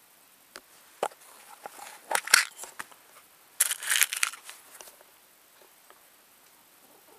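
Handling a tin of 4 mm Flobert cartridges: a few sharp clicks, then a short dense rattle about halfway through as small cartridges are tipped out into a hand.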